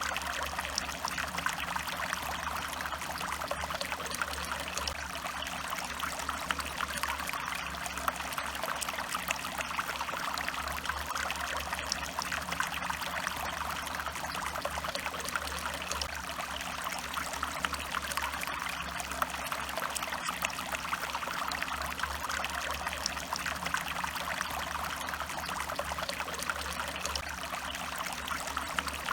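Small stream of water running steadily over stones, a continuous trickling and splashing with no pauses.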